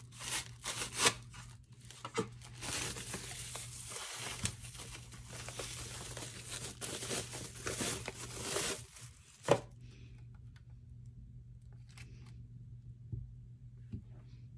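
Paper wrapping rustling and crinkling as a lightstick is pulled from its box and unwrapped, ending with a single sharp knock about nine and a half seconds in. After that come only a few faint taps.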